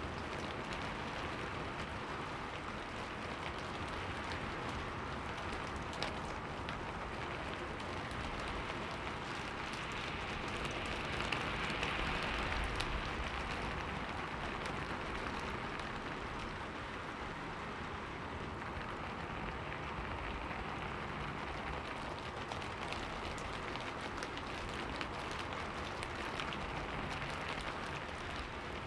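Rain falling on a window pane, a steady patter that swells a little about twelve seconds in, with one sharper drop-like tick about six seconds in.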